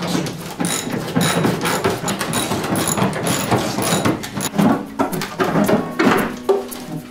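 Hand ratchet wrenches clicking in short, irregular strokes with metallic knocks as fender bolts are loosened.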